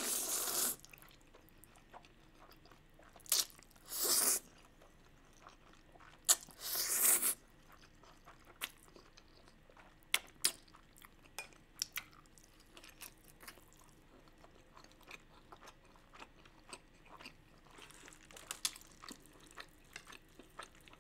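Close-miked slurping of spicy instant noodles: several loud, airy slurps in the first seven seconds. Then steady chewing of noodles and beef, with many small wet clicks and smacks.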